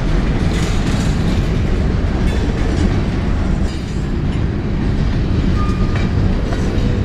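Covered grain hopper cars of a CN freight train rolling past, their wheels running over the rails with a steady low noise.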